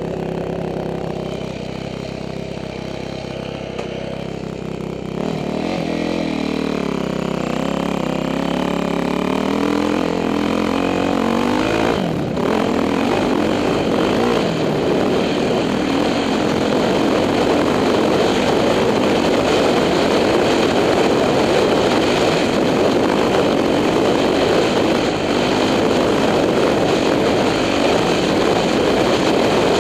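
2006 Yamaha YZ450F's single-cylinder four-stroke dirt bike engine running under way. Its note is steady at first, rises and falls in pitch from about five seconds in, and from about twelve seconds becomes a louder, rougher sound that stays up to the end.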